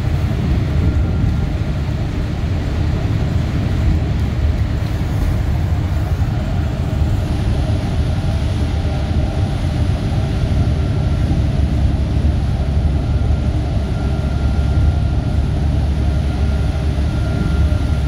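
Inside a moving bus: a steady low rumble of engine and tyre-on-road noise, with a faint high whine that comes and goes.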